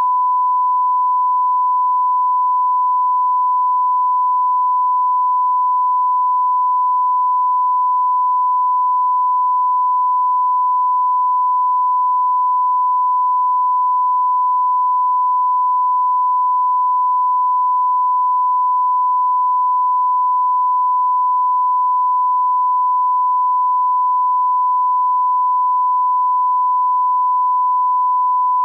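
A broadcast line-up test tone: a single steady pure tone at about 1 kHz played over colour bars, the reference tone used to set audio levels at the head of a programme tape.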